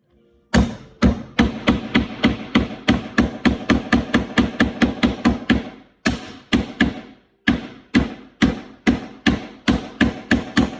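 Hammer driving long nails into the wooden panels of a birdhouse kit: a steady run of sharp blows, about three a second, with a brief pause about seven seconds in.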